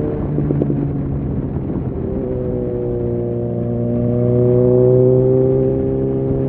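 Suzuki Bandit 650's inline-four engine under way. Its note breaks and drops just at the start, then rises slowly as the bike pulls, loudest about five seconds in.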